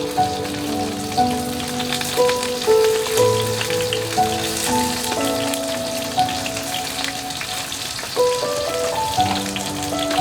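Steady rain, heard as an even hiss. A slow melody of held notes plays over it.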